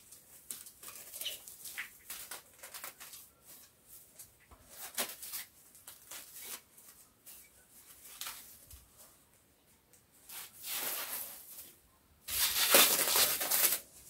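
Clear plastic wrapping film crinkling and rustling as a car window deflector is unwrapped, in many short crackles. It grows louder near the end, with a long loud rustle of about a second and a half as the film is pulled away.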